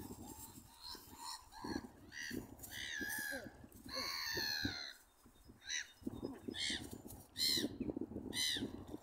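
Gulls calling over a duck pond: harsh, drawn-out cries in the first half, then short calls about once a second near the end.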